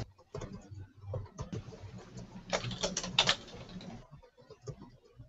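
Typing on a computer keyboard: irregular key clicks, with a quicker flurry about two and a half to three and a half seconds in, over a low steady hum.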